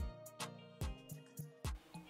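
Background music with a steady beat and sustained low notes.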